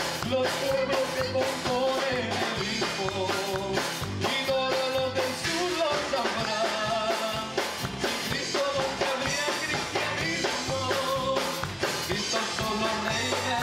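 Live worship band playing: two men singing a melody into microphones over electric bass and keyboard, with a steady rock beat.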